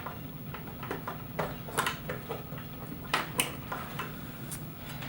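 Scattered light clicks and knocks of computer hardware being handled as a hard drive is fitted into its drive tray, over a low steady hum.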